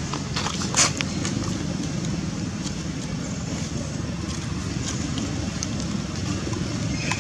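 Steady low rumble of wind buffeting the microphone, with a brief cluster of sharp crackles about a second in and a few faint clicks later.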